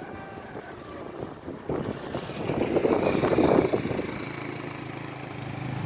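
A motor vehicle's engine: the noise swells to its loudest about three seconds in, then settles into a steady low engine hum.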